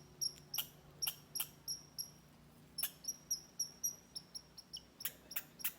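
A red squirrel calling, a rapid string of short, sharp, high-pitched chips about three a second, broken by a brief pause midway. The agitated, repeated chipping is the squirrel's alarm call, which the person takes for a warning to other squirrels.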